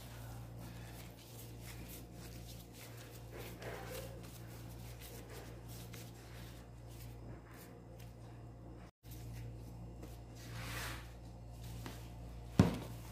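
Soft handling of sticky pizza dough and plastic gloves as dough is pinched off and rolled into balls, faint over a steady low hum. A single sharp knock near the end is the loudest sound.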